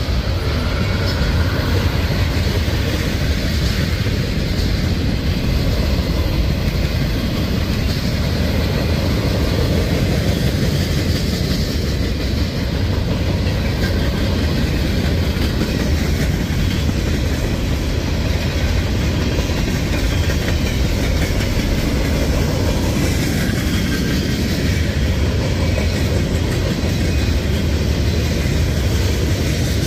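Freight cars of a CSX manifest train, tank cars and then covered hoppers, rolling steadily past: the loud, unbroken noise of steel wheels running on the rails.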